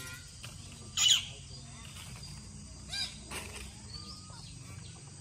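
Parrot squawks from an aviary: one loud, short, harsh call about a second in and a weaker call about three seconds in, over a steady low background hum.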